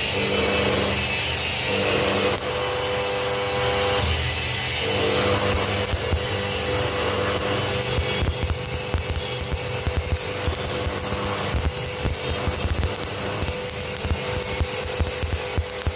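Metalworking in a welding job: a power tool runs steadily with a hum, and from about halfway through the sound turns into dense, irregular crackling.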